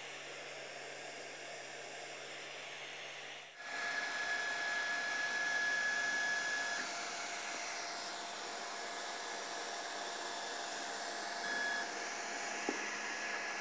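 RepRapPro Ormerod 2 3D printer running: a steady fan hiss, with a high, even motor whine for about three seconds after a sudden break near four seconds in, and again briefly near the end.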